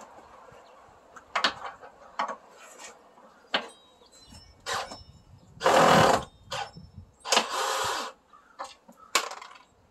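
Cordless drill driving self-tapping screws through a steel blade strip into a wooden beam, run in short bursts of the trigger. The longest and loudest runs come about six seconds in and again a second and a half later.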